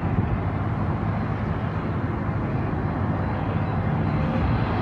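Twin-engine jet airliner approaching low overhead, its engines a steady rumble with a faint high whine, slowly growing louder.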